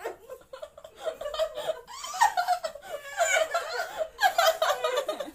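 People laughing and giggling in loud, broken bursts, heaviest from about two seconds in.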